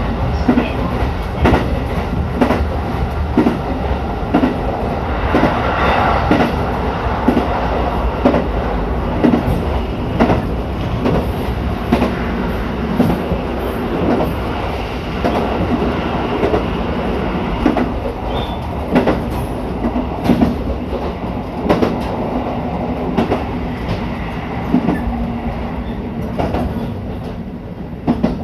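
Running noise heard inside a KiHa E130-series diesel railcar (KiHa E132) whose own engine is dead from a failure, so no engine note comes from this car. Only the steady rumble of wheels on rail is heard, with repeated clacks as the wheels cross rail joints.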